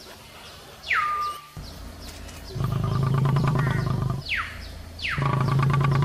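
Animal calls: short high whistles that fall sharply in pitch, and two low, buzzing, pulsing calls, each about a second and a half long.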